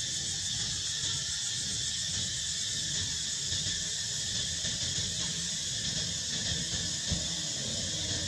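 Steady high-pitched insect chorus over a low rumble, with one short knock about seven seconds in.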